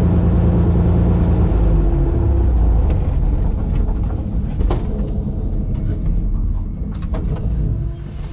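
Pitts S2C's Lycoming IO-540 six-cylinder engine running at low power while the biplane taxis, a steady low drone with a clear engine note. The sound drops in level about two seconds in and quietens further near the end.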